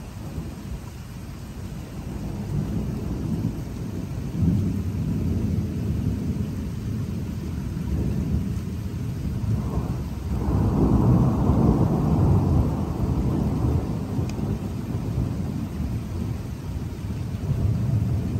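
Thunder rumbling and rolling in long low swells, with a louder peal that breaks out about ten seconds in and rolls on for several seconds.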